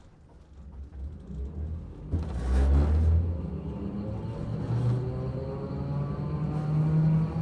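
Toei Arakawa Line streetcar starting off and accelerating, heard from inside the car. Its motor whine rises slowly in pitch as it gathers speed, with a loud rush of noise about two seconds in.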